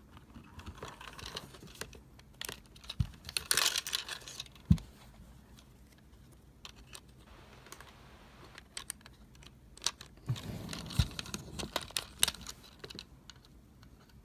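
Plastic parts of a Transformers deluxe action figure clicking and rattling as hands twist and snap it through its transformation. There are scattered small clicks, with one sharp snap about a third of the way in and a busier run of clicks later on.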